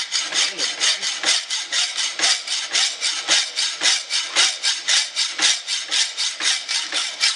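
Hacksaw cutting through the metal shaft of a 1940 GE J71 radio's rotary band switch, in rapid, even rasping strokes about five a second.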